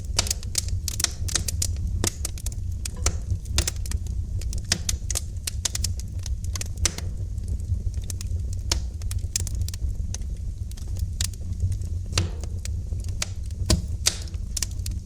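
Wood fire crackling in a fireplace: dense, irregular sharp crackles and louder pops over a steady low rumble of the burning fire.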